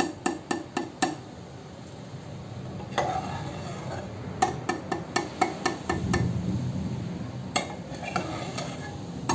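Perforated steel ladle clinking against a steel saucepan as syrup-soaked boondi is scooped out of the sugar syrup. Three bouts of quick taps, about five or six a second, with softer scraping and stirring in the syrup between them.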